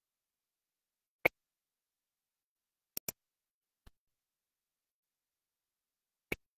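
A few short, sharp clicks against dead silence: one a little over a second in, a quick double click around three seconds, a faint one just after, and another near the end.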